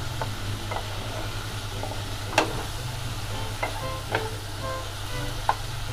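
Onions frying in oil in a pan, sizzling, stirred with a utensil that scrapes and clicks against the pan again and again, the loudest click about two and a half seconds in; a steady low hum runs beneath. The onions are slowly browning, nearly ready for the ginger paste.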